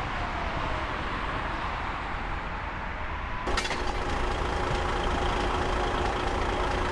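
Road noise of a vehicle driving along a motorway, with a passing tone that falls slightly in pitch. About halfway through it changes sharply to a heavy truck's engine idling with a steady hum.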